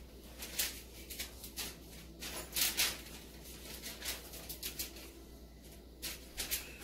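Irregular soft brushing and rubbing strokes of hands working bread dough against a floured surface, loudest about two and a half seconds in, over a faint low hum.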